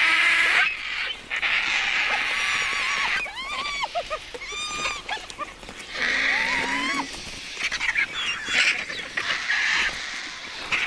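Vultures squabbling over a carcass: harsh, hissing screeches, with several squealing calls that rise and fall in pitch through the middle.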